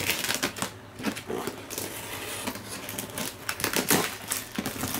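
A box cutter slicing through packing tape and plastic wrap on a cardboard box, with irregular scratching and crackling of the tape and plastic as hands pull at it.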